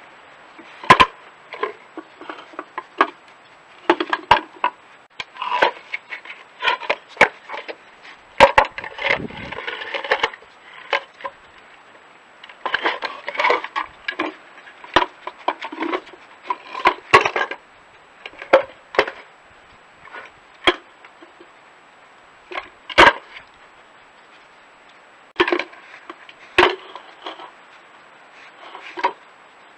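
Wooden peanut feeder box knocking and scraping on stone paving slabs as a badger noses and shoves it around, in irregular clatters with a few sharp knocks.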